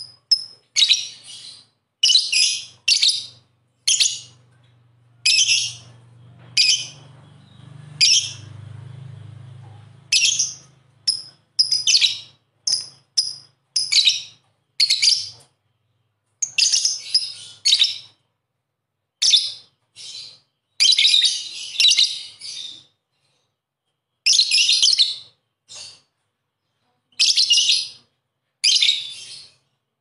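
Lovebird giving its chattering 'ngekek' call: many short, shrill bursts of about half a second each, coming in quick runs with brief pauses between them.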